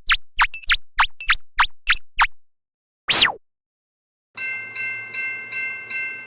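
Cartoon sound effects: a quick run of about eight short falling blips, then a single fast falling whistle about three seconds in. Near the end a bell-like electronic alarm starts, ringing about two and a half times a second.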